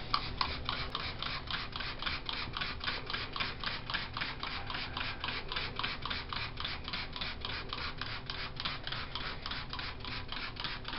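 Hand trigger spray bottle pumped rapidly and steadily, about four short sprays a second, misting the carpet.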